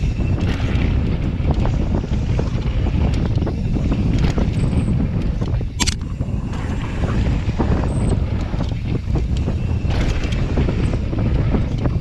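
Wind buffeting an action camera's microphone during a fast mountain-bike descent on a dirt trail, over the rumble of the tyres and frequent rattles and knocks from the bike on bumps. A sharp clack stands out about six seconds in.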